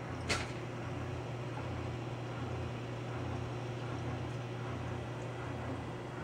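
Steady low electrical hum of running aquarium pumps, with a lower throb that pulses on and off about once every three quarters of a second. A short sharp click about a third of a second in.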